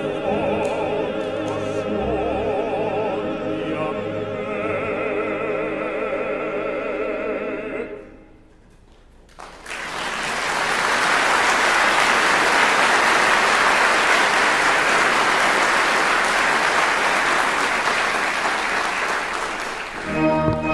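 Operatic singing with orchestra, closing on long held notes with wide vibrato. After a second of near-quiet the audience applauds for about ten seconds, and the orchestra starts up again near the end.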